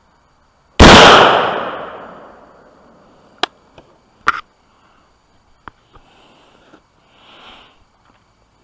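A single rifle shot from an AR-15 carbine, very loud with an echoing tail that dies away over about two seconds. A few short sharp clicks follow.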